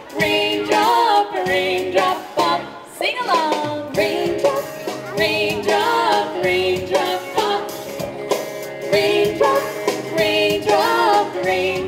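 Live children's song with female vocals singing together over a steady beat, heard in a shopping-mall space.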